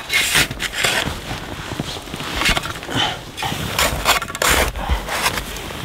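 Black Diamond shovel scooping and scraping snow, packing it under a tent's edge to fill a hollow and level the floor: a run of irregular crunching scrapes.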